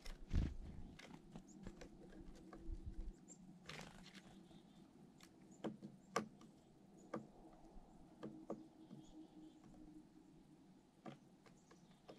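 Irregular light taps and clicks, with a low thump about half a second in, over a faint steady hum.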